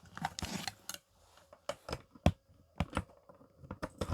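Irregular clicks and light plastic knocks of a small computer speaker and its cables being handled as the power lead is plugged in.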